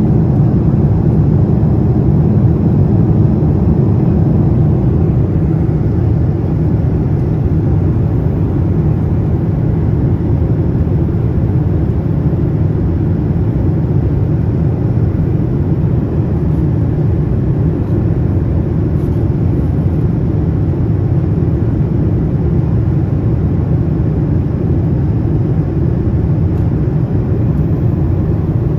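Steady cabin noise inside a Boeing 787 Dreamliner: a low, even rumble of its GEnx-1B engines and airflow, heard from a window seat behind the wing.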